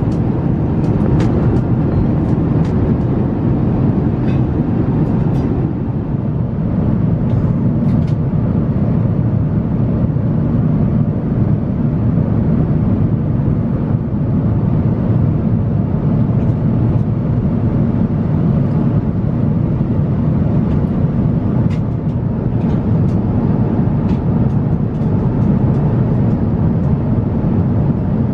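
Steady low rumble of airliner cabin noise in flight aboard an Airbus A350-900, the sound of engines and airflow, with a few faint clicks scattered through it.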